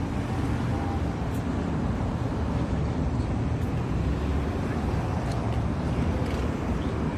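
Steady rumble of a car driving: engine and road noise, with a few faint ticks.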